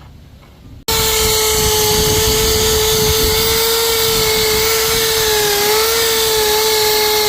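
Power tool spinning a wire wheel against a corroded hinge, stripping rust and paint: a steady high whine over harsh scratching, starting abruptly about a second in and dipping briefly in pitch a little past the middle as it bears down.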